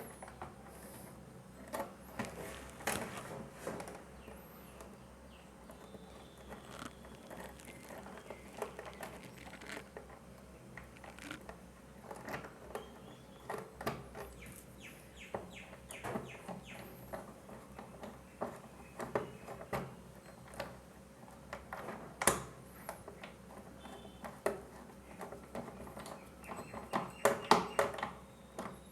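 Scattered clicks and taps of a small hand tool and plastic plug parts as wires are fitted into the terminals of a mains plug top, with a sharper knock about three-quarters of the way through and a quick run of clicks near the end.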